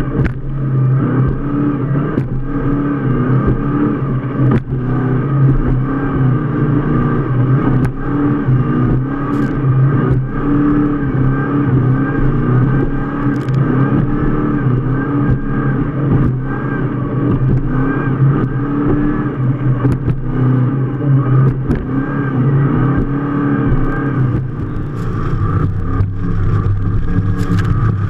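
Offshore powerboat's engine running hard at speed, a loud steady drone, with brief knocks now and then.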